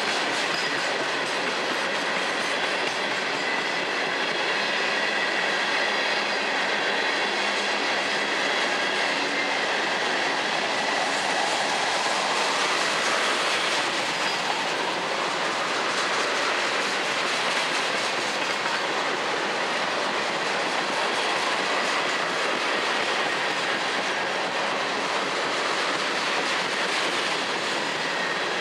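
Freight cars of a long Florida East Coast Railway train, mostly tank cars, rolling past at steady speed: a continuous clatter and rumble of steel wheels over the rail joints, with a faint, steady high wheel squeal.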